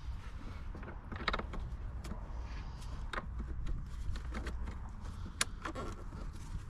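Scattered light clicks and knocks from hands working at the plastic glovebox housing in a Fiat Ducato's dashboard, over a steady low hum.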